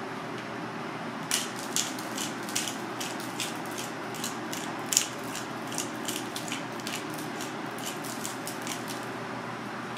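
Hand-held pepper grinder being twisted over skewers: a run of quick grinding clicks, about three a second, starting about a second in and stopping near the end, over a steady background hum.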